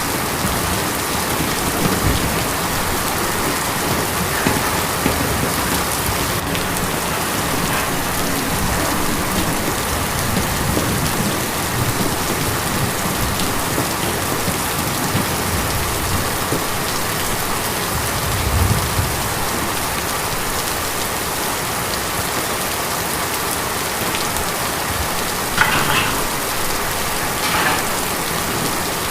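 Steady, heavy rain drumming on tin, a dense, even patter, with a few louder drops or splashes standing out near the end.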